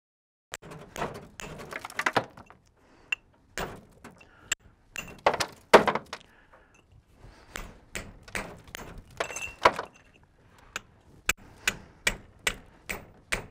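Hammer striking a steel chisel into a block of stone, chipping it: a run of irregular sharp strikes beginning about half a second in, a few with a short metallic ring.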